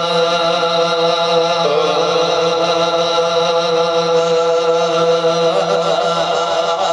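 A man chanting a naat in one long, drawn-out sung note. The pitch shifts about a second and a half in and wavers in ornamented turns near the end.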